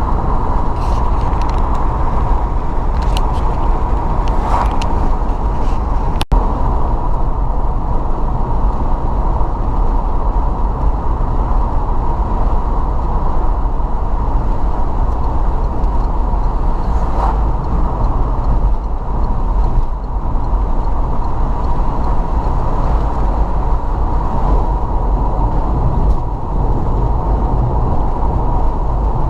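Steady road and engine rumble inside a moving car, with a brief break about six seconds in.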